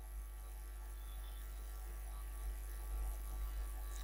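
Low steady electrical hum, mains hum from the recording setup, with a few faint low thumps.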